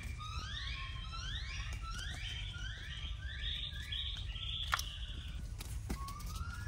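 A wild animal's call: a string of rising, siren-like sweeps about twice a second that climb higher in pitch and run together into a steady high buzzing tone. A sharp click comes about two thirds of the way in.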